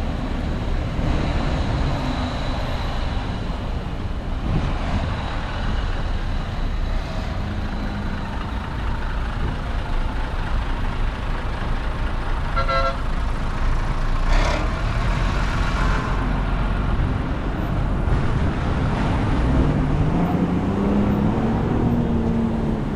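Steady low rumble of road traffic and heavy engines, with a short burst of beeping about halfway through and an engine's pitch rising then falling near the end as a vehicle passes.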